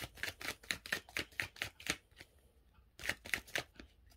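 A deck of oracle cards being shuffled by hand: a quick run of card slaps, about four or five a second, a short pause, then a shorter run about three seconds in.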